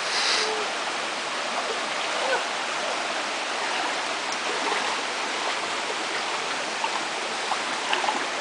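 Steady rushing of water in a shallow rocky creek, with faint light splashing of bare feet wading through it and a brief splash right at the start.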